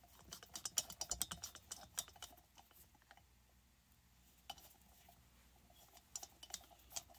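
Light metallic clicks and taps from small hand tools and a cylinder screw against a chainsaw's cylinder while the screws are being started. The clicks come in a quick cluster over the first few seconds, then a few scattered taps near the end.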